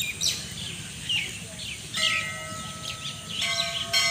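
Small birds chirping throughout. About halfway in, a temple bell is struck and keeps ringing, and it is struck again near the end.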